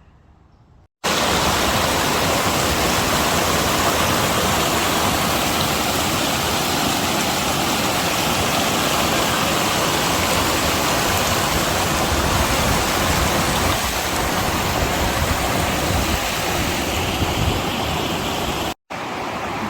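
Loud, steady rush of flowing water, starting abruptly about a second in and cutting off suddenly near the end.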